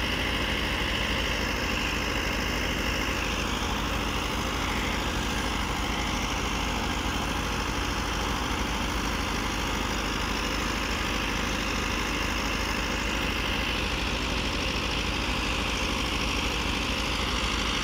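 Massey Ferguson 385 tractor's four-cylinder diesel running steadily, driving a threshing machine, whose constant whir mixes with the engine into one unbroken drone.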